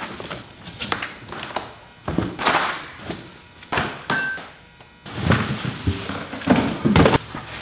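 A cardboard box being opened by hand: flaps pulled open and folded back with scraping, knocks and thunks, then a plastic-wrapped wheel lifted out of the box with rustling and bumping, loudest near the end.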